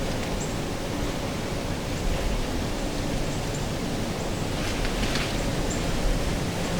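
Wind buffeting the microphone outdoors: a steady rushing noise with a heavy low rumble, with a few faint rustles about five seconds in.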